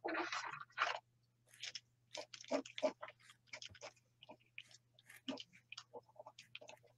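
Faint tapping and scratching of a marker tip on paper in short, irregular strokes, several a second, as texture marks are dabbed onto the page.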